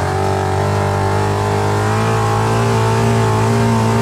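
Suzuki GSF400 motorcycle inline-four engine, swapped into a Kawasaki Mule side-by-side, running under way at a fairly steady pitch, heard from inside the cab.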